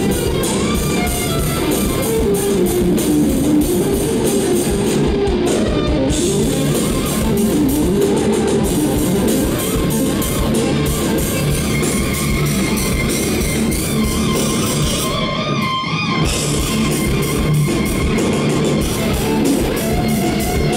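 Live instrumental rock band: an electric guitar plays a melodic lead with gliding, wavering notes over bass guitar and drums, loud through the venue's PA.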